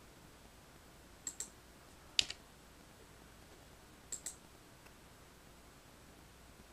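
A few faint, separate computer mouse and keyboard clicks: a pair, then a single sharper click, then another pair.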